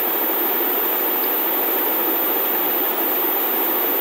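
Steady background hiss with no pitch or rhythm, the constant noise floor of the recording.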